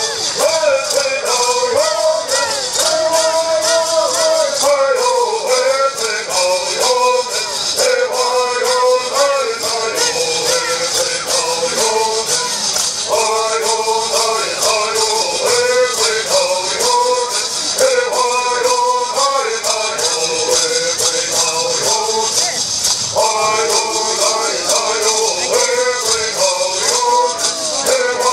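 Bird songs: men singing together to the steady shaking of gourd rattles.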